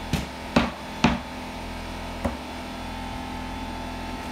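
Air compressor running with a steady hum, while a pneumatic flooring stapler is struck with a mallet four times, three sharp blows in the first second and one more about two seconds in, driving staples into red oak flooring.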